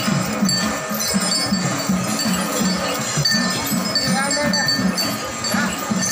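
Metal bells and chains on caparisoned festival elephants jingling and ringing as they walk, with a low, regular beat underneath.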